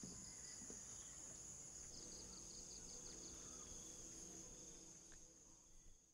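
Faint evening insect chorus: a steady high-pitched cricket trill, with a short run of quick chirps about two seconds in, fading out near the end.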